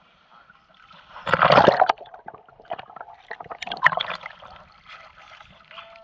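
Water splashing and sloshing as a swimmer scoops water over his face, heard through a camera's waterproof housing: one loud splash about a second in, then smaller splashes a couple of seconds later.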